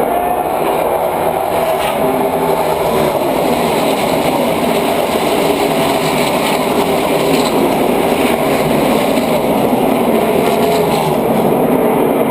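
NASCAR stock cars' V8 engines running at speed around the track: a loud, steady drone from the field with no break.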